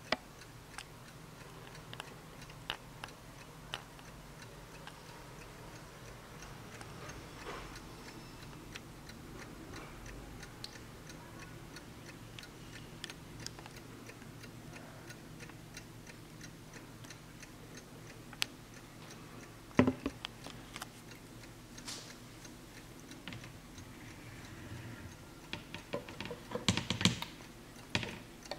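Warmink Wuba mantel clock's mechanical movement ticking steadily. There are a few louder knocks about two-thirds of the way through, and a cluster of handling knocks near the end as the clock's wooden rear door is opened.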